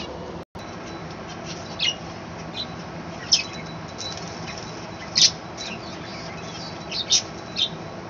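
Budgerigars calling: short high chirps and squawks every second or so, the loudest about three and five seconds in, over a steady background hiss.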